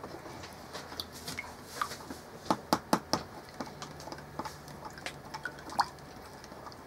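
A utensil stirring melted butter and seasoning in a glass measuring cup, ticking and clinking against the glass at irregular moments, with a cluster of sharper clinks around the middle.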